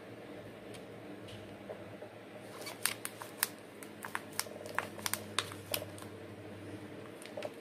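Thin clear plastic plant pot crackling and clicking as hands squeeze it and press sphagnum moss in around an orchid. The ticks come in an irregular run of about a dozen through the middle, over a faint steady low hum.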